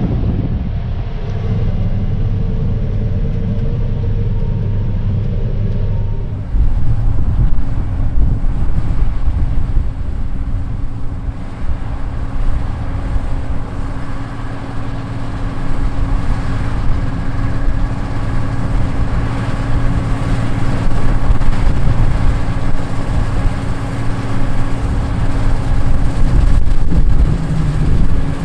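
John Deere 9510 combine harvester running steadily while harvesting wheat. For the first six seconds it is muffled, as heard inside the cab. Then it turns abruptly louder and fuller, with a steady machine drone.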